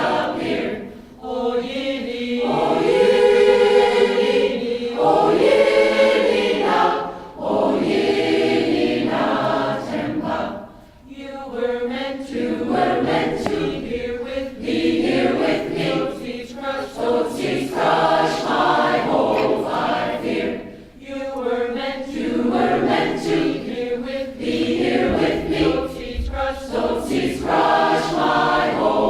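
Choir singing a southern African song in several voice parts, in phrases with brief breaths between them.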